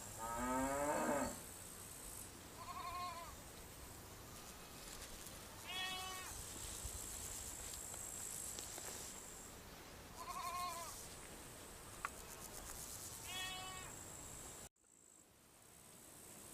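Sheep bleating four times in short calls, after a lower, longer rising call from the livestock at the start, over a steady high chirring of crickets. The whole ambience cuts off abruptly near the end.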